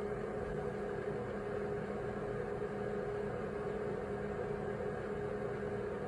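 A steady machine hum with several held tones over an even hiss, unchanging throughout.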